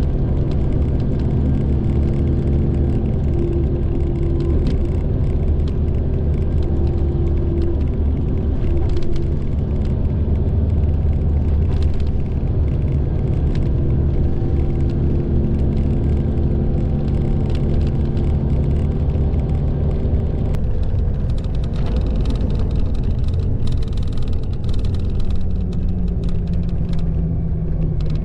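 Mitsubishi Fuso Aero Ace highway coach's diesel engine and tyre noise heard from inside the passenger cabin at cruising speed: a steady drone with a low engine hum. Light clicks and rattles come in during the last third, and the engine note drops slightly near the end.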